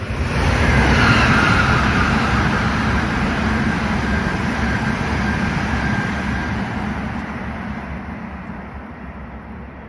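Tohoku Shinkansen Hayabusa bullet train passing through a station at reduced speed, held back by a strong-wind speed restriction. A rush of noise with a thin whine rises sharply at the start, then slowly dies away over several seconds as the train goes by.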